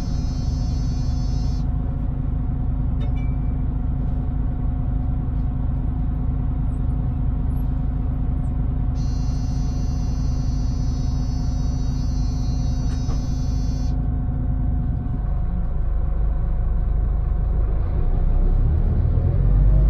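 Scania Interlink MD bus engine idling at a stop, heard from inside the cabin. A high electronic buzz sounds twice, for a few seconds each. Near the end the engine speeds up as the bus pulls away.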